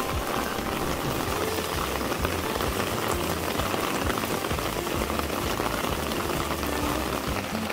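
Steady rain falling on a garden, drops hitting wet leaves and a wooden deck.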